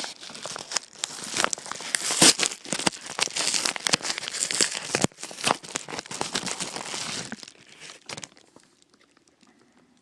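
Packaging being torn open and crinkled to unwrap a replacement laptop DC jack: dense crackling and tearing that stops about seven and a half seconds in.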